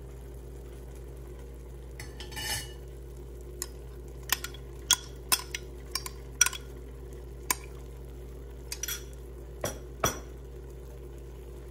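A metal spoon tapping and scraping crushed coconut and green chilli out of a clear container into an aluminium pan: about a dozen short, sharp clicks and knocks at uneven intervals, over a steady low hum.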